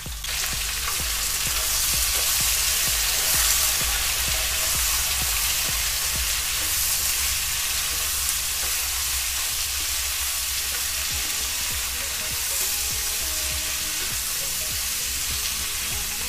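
Freshly added sliced onions sizzling in hot oil in a kadhai, a steady hiss that jumps up just as they go in. A wooden spatula stirs them, scraping and clicking against the pan throughout.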